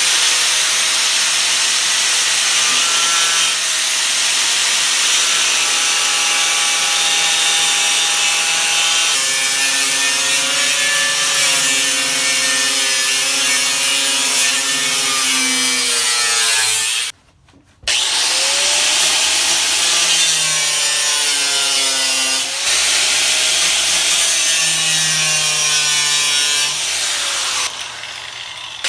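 Power cutting tool cutting out rusted sheet metal from the Jeep CJ5 body, its motor pitch sagging and recovering as the cut loads it. It stops briefly about 17 seconds in, then spins back up and carries on cutting.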